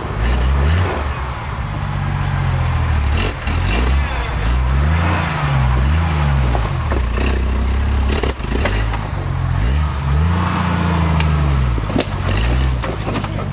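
Off-road 4x4's engine revving up and down again and again as it works over rough terrain, with scattered knocks and clatter.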